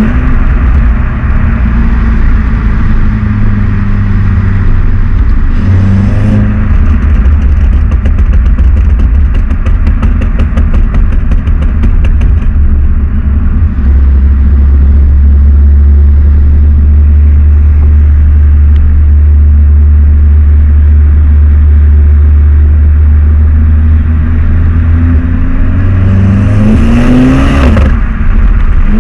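Volkswagen Golf 7 R's stock exhaust on its turbocharged 2.0-litre four-cylinder, a steady low engine drone while under way. The note shifts briefly about six seconds in, holds steady for a long stretch, and rises in pitch as the engine revs up near the end.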